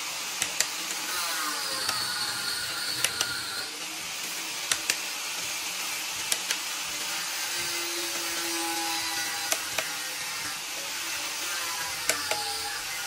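Hand ratchet wrench clicking as bolts are turned on a V8 diesel engine, in short pairs of sharp clicks every couple of seconds.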